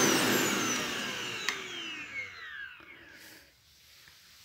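Electrolux Silent Performer bagless vacuum cleaner's 650 W motor spinning down after being switched off, its whine falling in pitch and fading away over about three seconds. A single light click about a second and a half in.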